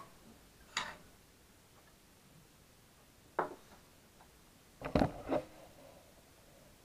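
A few separate sharp metal clicks and knocks from handling the hinged steel door of a homemade propane-tank wood stove. One comes about a second in and another a little after three seconds; the loudest is a double knock about five seconds in.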